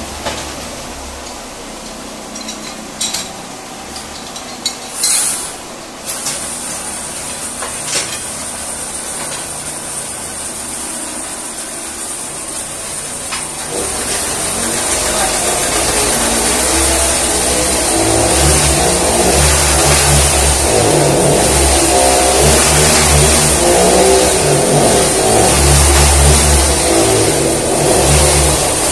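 A few sharp knocks and clinks over a low hum, then, about halfway through, a motor-driven machine starts up and runs loudly with a rough, pulsing rumble that builds and holds. A steady high hiss sits under it.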